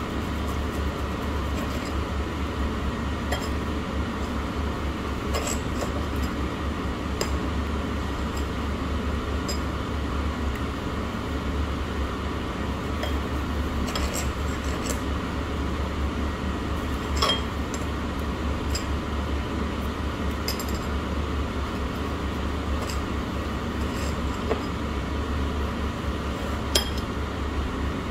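Scattered clinks of glasses, dishes and cutlery over a steady low hum, the strongest clink about two thirds of the way through.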